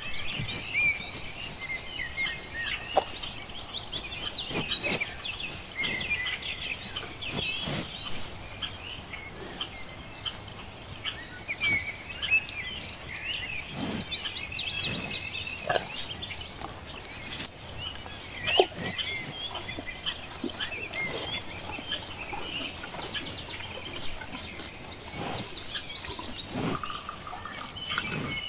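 Many small birds chirping and calling together in a busy, continuous chorus of short chirps, with a few sharper calls standing out.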